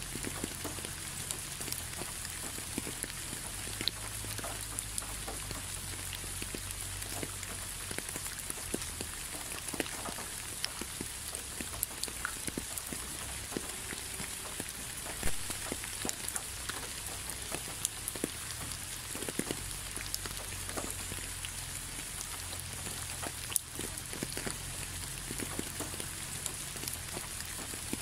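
Steady rain falling: a constant hiss with individual drops landing as scattered sharp ticks, over a low rumble.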